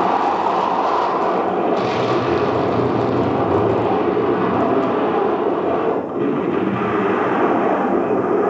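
A war documentary's soundtrack heard through a hall's loudspeakers: a dense, steady roar like jet aircraft in flight, with a brief dip about six seconds in.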